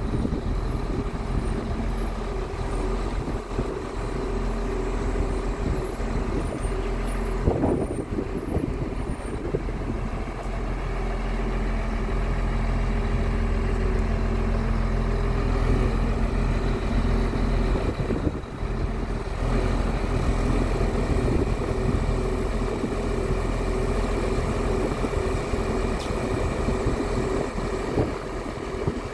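Scania R truck's diesel engine running steadily to drive the hydraulics of its truck-mounted loader crane while the boom is moved, a constant drone with a held mid-pitched hum.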